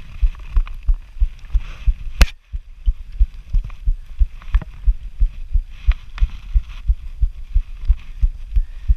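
Rhythmic low thumping from a chest-mounted action camera on a cyclist riding a road bike, about three thumps a second in time with the pedalling, over a light rush of wind. A single sharp click about two seconds in.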